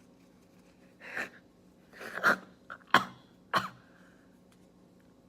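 A person making four short, sharp breath noises through the nose and throat between about one and three and a half seconds in, the middle two the loudest: attempts to force a sneeze that has not yet come.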